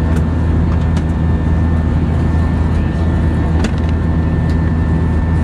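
Steady cabin drone of an Airbus A320-232 in flight: engine and airflow noise, strongest in the low range, with a faint steady whine above it and a few faint clicks.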